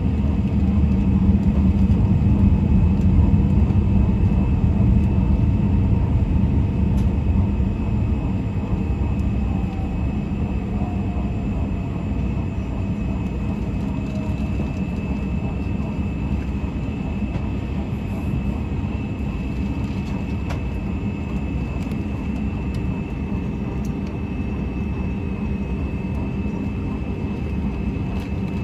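Airbus A320 cabin noise while taxiing, heard from a seat near the back: a steady low rumble of the jet engines and the rolling airframe, with a faint steady high whine. It is louder for the first several seconds, then settles to an even level.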